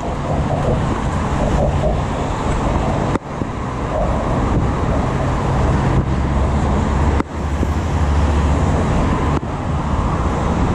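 Steady road traffic noise from cars passing on the roadway alongside. A deeper low rumble swells about seven and a half seconds in and fades a second later. The sound drops out for an instant a few times.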